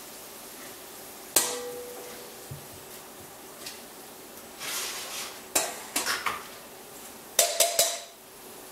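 Metal tongs clinking and clattering against a frying pan and a stainless steel bowl while fries are lifted out. There are a handful of separate knocks with a quick cluster near the end, some ringing briefly like struck metal.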